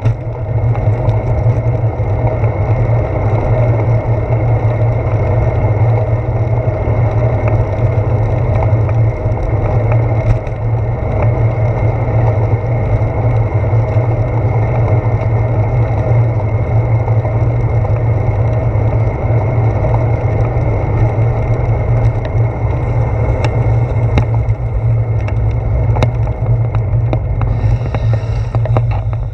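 Steady rumble of bicycle tyres rolling on wet pavement, with handlebar vibration, picked up through a handlebar-mounted GoPro Hero 4, and a few light knocks.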